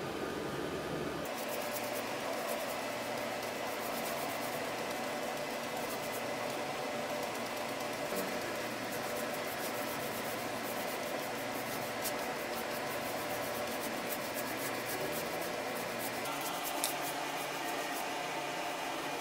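A bristle paintbrush rubbing paint onto bare plywood, heard as faint scratchy ticks over a steady background hum; the hum changes abruptly about a second in and again near the end.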